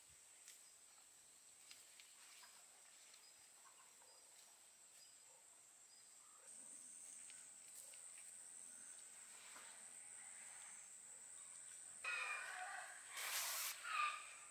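Faint outdoor ambience with a steady high-pitched insect drone. About two seconds before the end, louder rustling comes in, which fits the nylon tent bags being handled.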